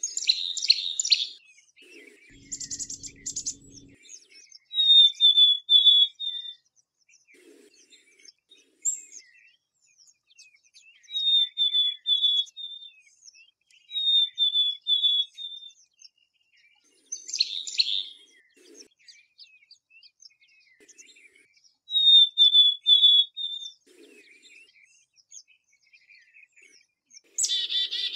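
Black-capped chickadee calling: short, quick runs of high notes repeated every few seconds, mixed with a few harsher, raspy notes.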